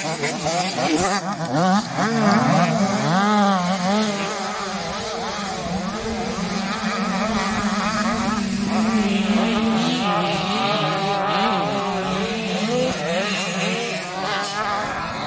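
Several 85 cc two-stroke motocross bikes racing, their engines revving up and down together so that many pitches rise and fall over each other.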